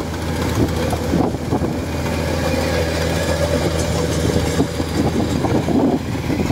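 Crawler rice combine harvester running while harvesting: a steady low engine hum with a rough, clattering mechanical noise over it.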